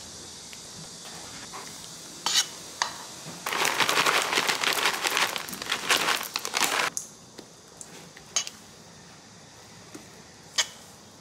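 A silicone spatula working thick chocolate batter in a stainless steel bowl, with a few sharp taps against the bowl. In the middle comes about three seconds of dense crinkling and rattling as chocolate chips are poured in from their packet, the loudest part. After that come soft stirring and one more tap on the bowl near the end.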